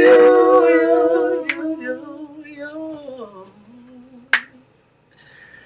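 Gospel voices singing a cappella, holding one long note that fades and slides down in pitch, with two sharp finger snaps, about a second and a half in and again just past four seconds.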